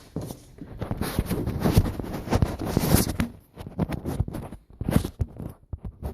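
Irregular knocks, scuffs and rustling, like handling or shuffling against a hard surface, loudest in the first three seconds with short pauses later on.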